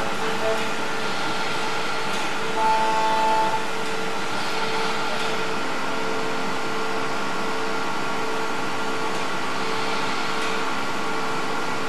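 CNC milling machine's end mill side-milling the edge of a metal plate: a steady mix of spindle whine and cutting noise, with a brief higher tone about three seconds in.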